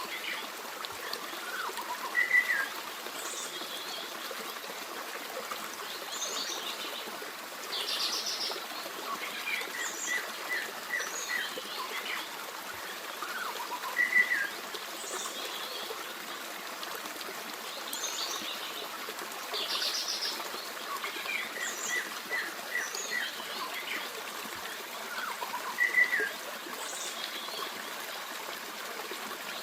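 Forest stream running steadily with several birds singing and chirping over it, the same bird phrases coming back about every twelve seconds.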